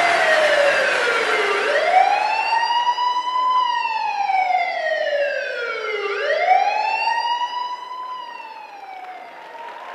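Wailing siren sound effect played over the stage's sound system, its pitch sweeping slowly down and up about twice before fading out near the end.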